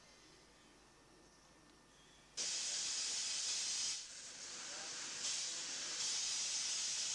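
Steam hissing loudly from low at the front of saddle-tank steam locomotive No. 68012, where its cylinder drain cocks are blowing off. It starts abruptly about a third of the way in, eases briefly, then builds again.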